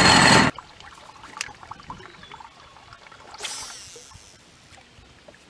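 A loud rush of noise cuts off about half a second in. Then faint water lapping and ticking against the boat hull, and a little over three seconds in a fishing cast: a short whirring swish as line runs off the reel.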